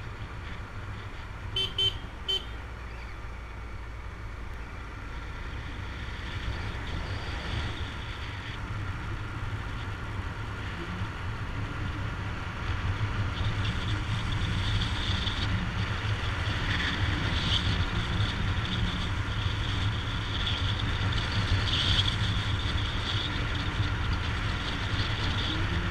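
Honda Dazzler motorcycle engine running at road speed, with wind rumbling on the action-camera microphone. A horn gives two short toots about two seconds in, and the engine and wind noise grow louder about halfway through.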